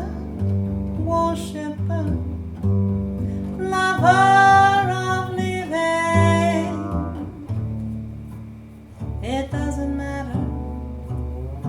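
Music: a woman singing over a double bass accompaniment, with sung phrases about four seconds in and again near the end and the bass sustaining low notes between them.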